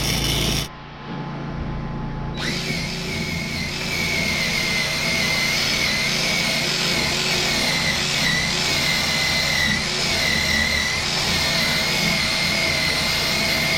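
Angle grinder running on steel weld work, a steady high whine whose pitch wavers slightly as it is pressed into the metal. It starts about two seconds in, after a short, quieter, duller stretch.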